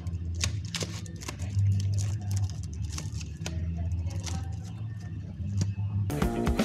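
Vinyl LP sleeves being flipped one after another in a record crate, giving an irregular run of sharp cardboard clicks and slaps over a low steady hum. Guitar music starts near the end.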